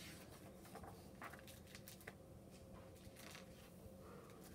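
Near silence with faint, scattered rustles of picture-book paper pages being turned and handled, over a low room hum.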